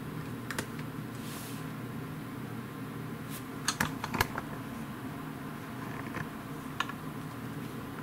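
Small sharp clicks and taps of a USB cable being handled and its plug pushed into a smartphone's port: one just after the start, a quick cluster about four seconds in, and one near the end, over a steady low hum.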